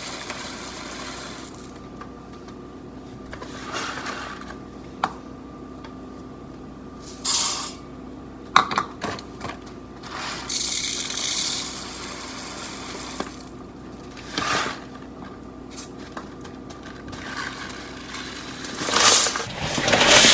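Kitchen work on a pot of rice and water: several short bursts of hissing, like running water, and a few sharp knocks and clinks of a pot and utensils, over a steady appliance hum.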